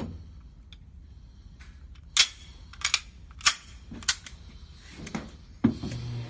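Gunshots at a shooting range: a string of about six sharp cracks fired in quick, uneven succession, with a low hum rising near the end.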